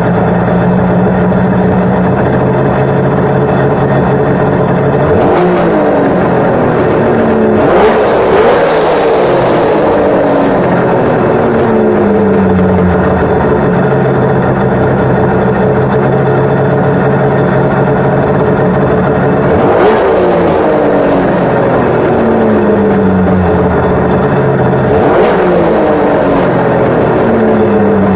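1996 Arctic Cat ZRT 800 snowmobile's three-cylinder two-stroke engine idling steadily, with the throttle blipped four times; each rev climbs quickly and winds back down slowly to idle. It is running well, with the idle set and the carbs tuned.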